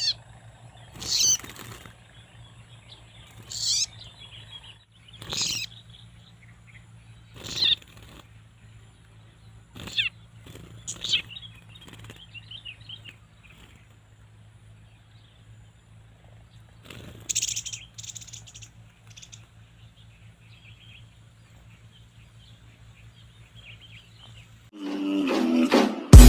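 A small bird giving short, sharp high calls, one roughly every two seconds, over a faint steady low hum. Music starts near the end.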